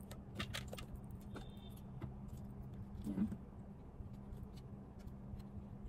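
Scattered light clicks and taps of plastic as a portable blender jug's lid and flip-up straw cap are handled, over a steady low hum.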